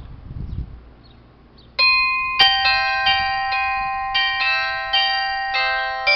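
Town hall chime of bells starts playing a melody about two seconds in: clear struck notes several times a second, each ringing on and overlapping the next. This is the tune played a minute before each full hour. A brief low rumble comes before it.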